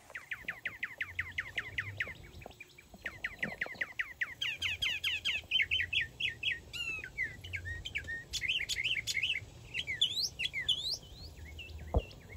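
Birds chirping: a fast run of short, evenly repeated chirps, about ten a second, turning into a varied mix of chirps and rising whistles. A single sharp thump near the end.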